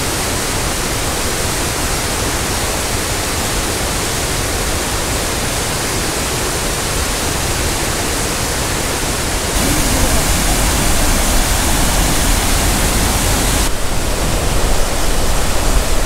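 Steady rushing of white water pouring over the stepped rock cascades of Aysgarth Falls on the River Ure. A deeper rumble joins about ten seconds in.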